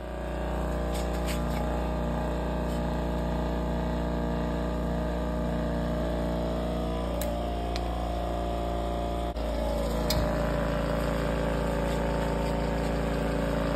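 Air compressor of a caravan's airbag suspension running steadily, pumping up the airbags to raise the van. It gives a constant motor hum with a brief break and a slight change in tone about nine seconds in.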